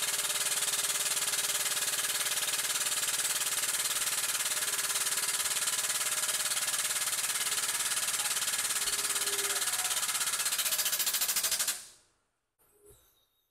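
Air-driven hydraulic pump of a Strongway 50-ton pneumatic/hydraulic shop press running with a steady, rapid chatter as the ram is driven down to dimple an aluminum panel over a die. It cuts off suddenly near the end, followed by a single faint click.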